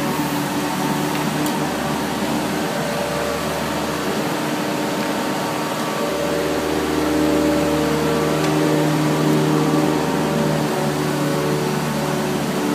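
Mini excavator's diesel engine running steadily under work, a little louder from about seven to ten seconds in.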